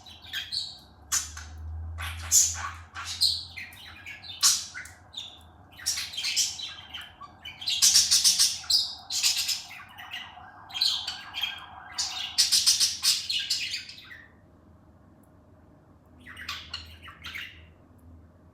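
Pet parrot squawking and chirping in a rapid run of short, shrill calls, pausing for a couple of seconds before a few more calls near the end.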